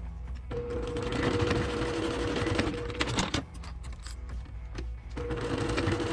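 Brother PQ1500SL high-speed straight-stitch sewing machine stitching in two runs of about two and a half seconds each, a steady motor whine with needle clatter. Between the runs it stops briefly, with a few sharp clicks.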